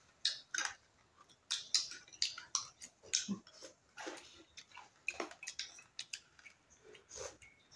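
Close-up eating sounds: chewing and mouth smacks mixed with cutlery clicking against a plate and bowl, in short irregular clicks.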